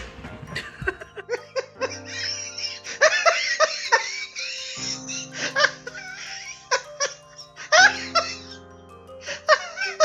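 A baby giggling and laughing in repeated bursts over background music.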